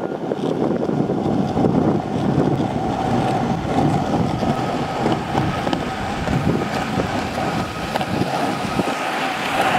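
Penny board's small plastic-deck wheels rolling over concrete: a steady rumble with wind on the microphone.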